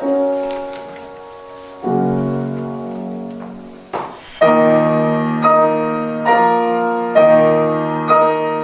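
Solo piano between two art songs: two held chords fading away close the first song. Then, after a brief click about four seconds in, steady repeated chords about once a second begin the introduction to the next song.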